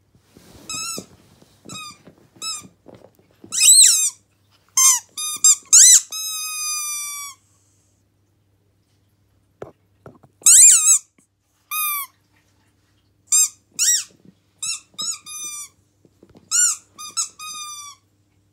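Siberian husky chewing a squeaky pig toy, squeezing out a run of short, sharp squeaks, with one drawn out about six seconds in. The squeaking stops for a couple of seconds in the middle, then starts again. The squeaker has begun to give an odd-sounding squeak.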